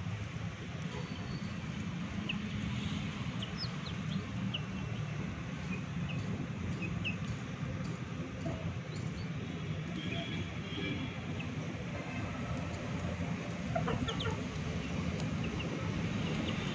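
A chick peeping in short, high cheeps scattered throughout, with a rooster clucking a few times about three-quarters of the way through, over a steady low rumble.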